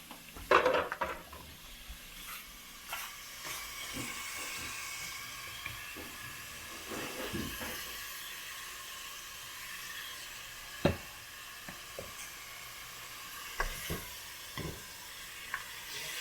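Food sizzling in a hot pan, a steady frying hiss, with scattered clinks and knocks of a cooking utensil. There is a loud clatter about half a second in and a sharp knock near the eleventh second.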